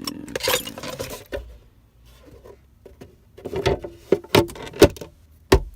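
Plastic center console parts being worked into place by hand: a rustle and scrape near the start, then a run of sharp plastic knocks and clicks in the second half.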